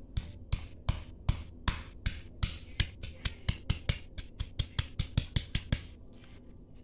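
Stone pestle pounding shallots and ginger in a stone mortar: a steady run of knocks, about two or three a second, speeding up to about five a second around halfway and stopping near the end.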